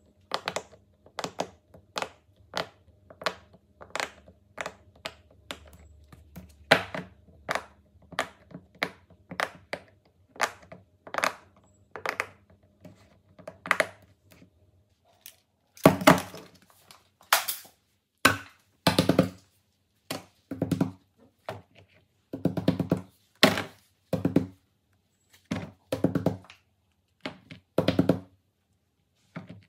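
Silicone pop-it fidget toy bubbles being pressed and popping one by one, about two pops a second. From about sixteen seconds in the pops come louder and deeper, in quick clusters.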